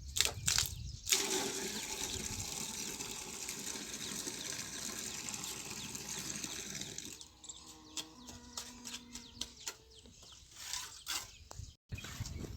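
Water rushing steadily for about six seconds, then stopping, followed by scattered light clicks and knocks.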